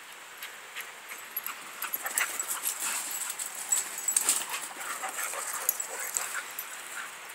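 Dogs play-fighting: a busy run of scuffling, short sharp noises and brief dog whimpers and vocalizations, picking up about two seconds in.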